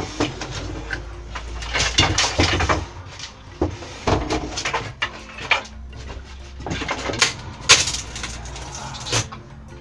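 Wooden bed frame being taken apart and lifted out: a run of irregular knocks, bangs and clatter of timber, the sharpest knock about three-quarters of the way through.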